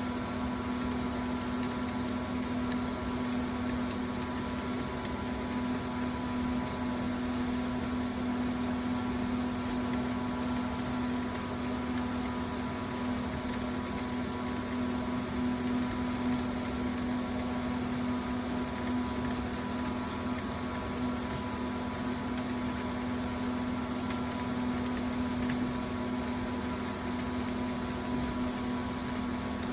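Steady mechanical hum: one strong low tone with fainter higher tones over an even hiss, unchanging in level.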